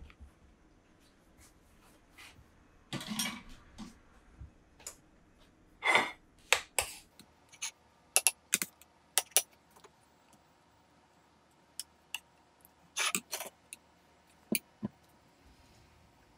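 Metal spoon clinking and scraping against a saucepan and a plate as food is dished up: scattered sharp clinks and brief scrapes with quiet gaps, several in quick succession about eight seconds in and again near thirteen seconds.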